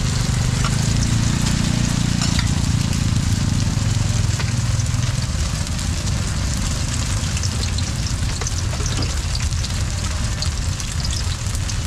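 Garlic chive cakes shallow-frying in oil on a large round flat griddle: a steady sizzle, with a few light clicks of metal tongs and spatula. A low rumble sits underneath for the first few seconds and fades about five seconds in.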